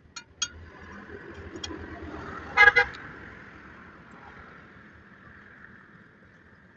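A vehicle rumbling past, with two short horn toots about two and a half seconds in, the loudest sound here; a faint steady hum continues after it.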